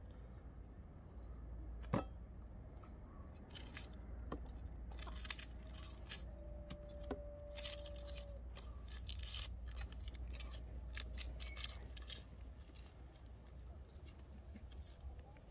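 Small knife peeling a dry onion: a run of short, crisp papery crackles and scrapes as the skin is cut and torn away, with a single sharp click about two seconds in.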